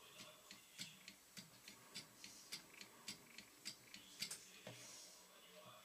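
Fly-tying thread being wound around a hook in a vise, light clicks coming about three a second with the turns. The clicks stop a little over four seconds in, and a soft hiss follows.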